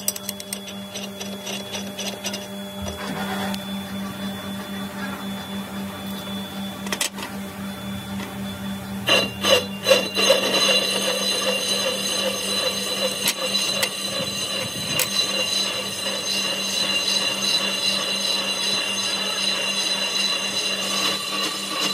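Belt-driven metal lathe machining a cast-iron truck brake drum: a steady machine hum with a few clicks in the first seconds. About nine seconds in it grows louder, with a high ringing as the tool cuts the spinning drum.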